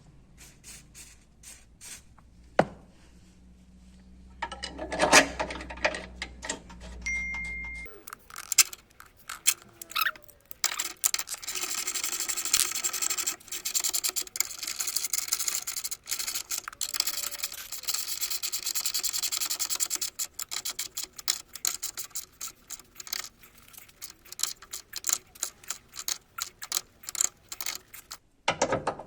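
Ratchet wrench clicking rapidly as bolts are run in and tightened, with scattered metal knocks and clinks, the clicking thinning out toward the end as the bolts snug down.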